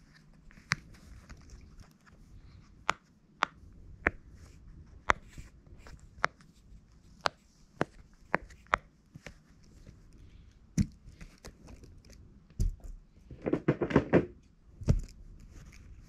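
Silicone push-pop bubble fidget toy being pressed one bubble at a time with a fingertip: a string of sharp little pops, irregularly spaced about every half second to a second. Near the end comes a short burst of louder handling noise.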